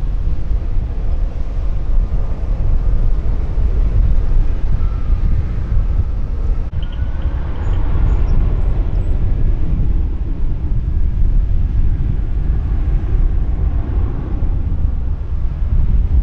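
Gusty wind buffeting the microphone, the loudest thing throughout, over the distant running of an airliner's jet engines. About seven seconds in the sound breaks briefly, and a faint engine whine with a few high thin tones rises over the rumble as the engines run up to takeoff thrust.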